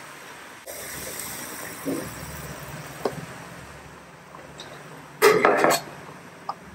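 Ground beef sizzling steadily in a hot wok. About five seconds in there is a short, louder rough burst as chopped onion is pushed from a plate into the pan.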